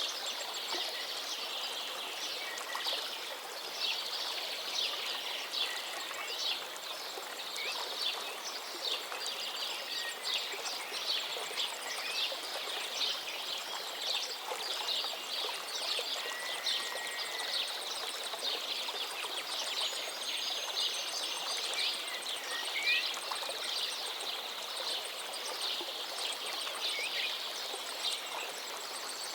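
River water flowing and splashing steadily, with a few brief bird chirps now and then.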